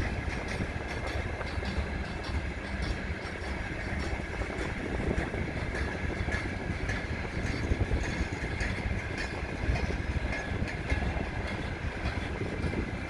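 Freight train wagons rolling slowly past, their wheels clicking irregularly over the rail joints over a low rumble, with a faint high-pitched squeal.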